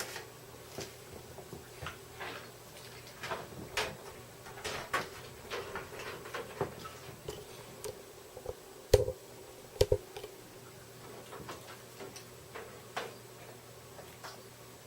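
Scattered light clicks and knocks of computer cables and plugs being handled and set against a PC case, with two louder thumps about 9 and 10 seconds in.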